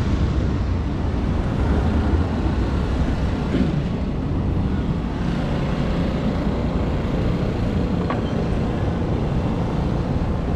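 Steady outdoor background rumble, heaviest in the low end, with no clear single source.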